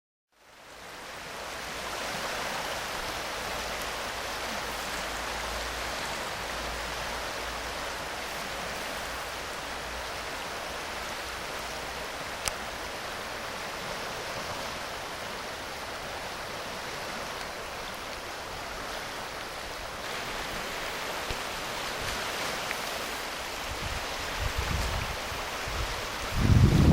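The River Spey in flood from snowmelt: a steady rush of fast-flowing floodwater. Near the end, wind gusts buffet the microphone with low rumbles.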